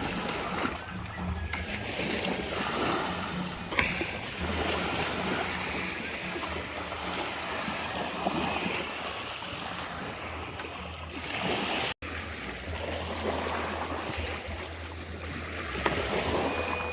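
Water washing at the shore with wind buffeting the microphone, a steady rough rush with a brief break near the middle.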